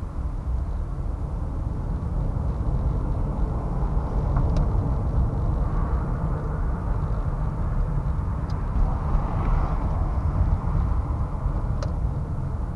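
Car driving: a steady low rumble of engine and tyres on the road, swelling briefly about nine seconds in, with three faint clicks.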